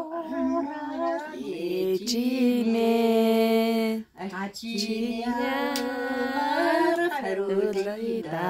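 A woman singing a Mongolian song alone with no instruments, holding two long notes with vibrato and taking a short breath between them about four seconds in.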